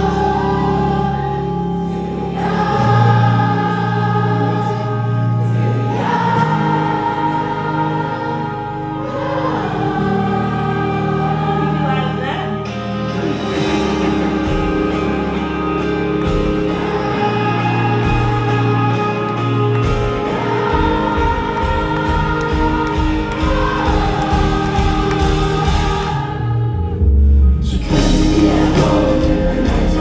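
Live pop band music from the audience floor: acoustic guitar, bass and drums under many voices singing long held notes, the crowd singing along. Near the end the music drops back briefly, then the full band comes back in with the drums.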